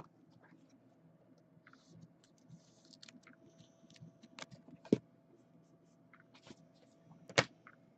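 Trading cards being handled: quiet rustling and sliding of cards, with two sharp clicks, about five seconds in and near the end.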